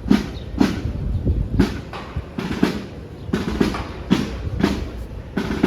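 Marching drum played by soldier reenactors, beating a steady cadence of about two strokes a second.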